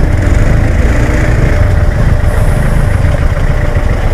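Motor vehicle engines idling in road traffic, a steady low rumble.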